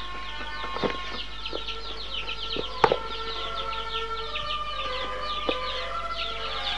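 Many small birds chirping continuously in quick, short, falling peeps, with a few sharp knocks, the loudest about three seconds in.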